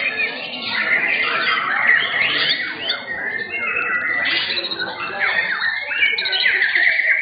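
Several white-rumped shamas (murai batu) singing at once, a dense overlapping chorus of loud whistles, fast trills and sweeping notes.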